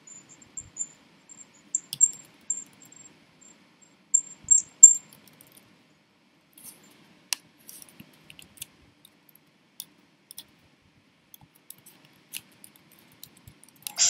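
Scattered light clicks and taps of a computer mouse and keyboard, irregular and sparse, with a quick cluster of sharper clicks about four to five seconds in.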